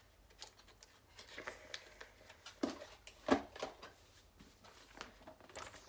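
Trading cards and paper guides being handled: soft rustling and light taps, with a couple of louder knocks a little after the middle.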